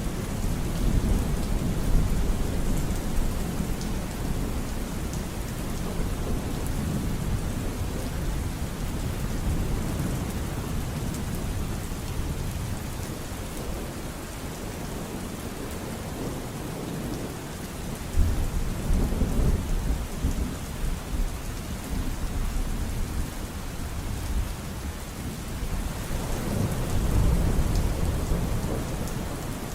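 Thunderstorm: steady rain with low rolling thunder rumbles, one near the start, another a little past halfway and a third near the end.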